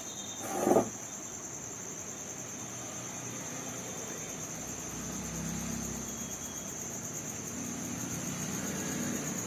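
Cricket chirping steadily in a high, fast-pulsing trill. A brief louder sound comes just under a second in, and a faint low hum comes in about halfway.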